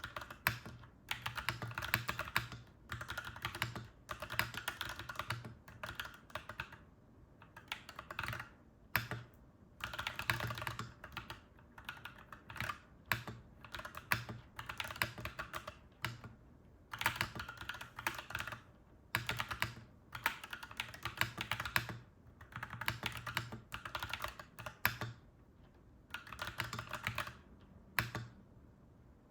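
Typing on a clacky mechanical keyboard: quick runs of keystrokes in bursts of a second or two, broken by short pauses.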